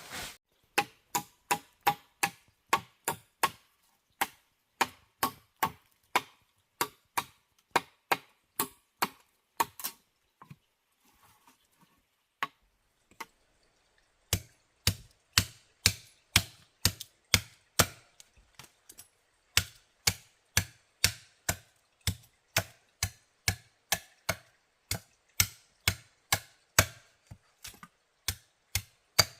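Chopping: a steady run of sharp strikes, about two a second. It stops for a few seconds about ten seconds in, then resumes with a heavier thud to each strike.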